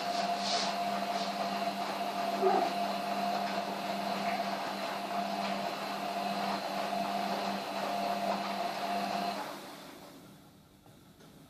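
A small electric machine running steadily with a whirring hum, then winding down and stopping about nine and a half seconds in.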